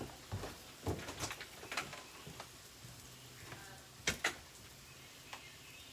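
Faint scattered knocks and clicks from someone moving about off to the side, with two sharper clicks close together about four seconds in.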